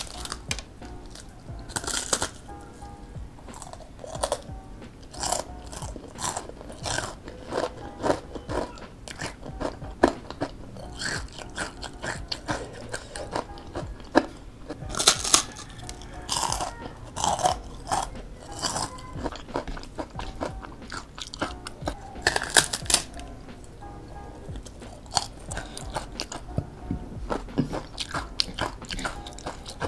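Crunchy bites and chewing of flour-battered fried tempeh, close to the microphone. The crisp crunches come at irregular intervals, with the loudest bites about two seconds in, halfway through and around three-quarters of the way.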